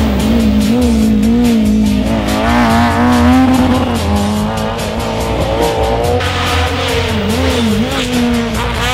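Rally car engine running at high revs, its pitch rising and falling quickly as the driver works the throttle through a corner and the car passes.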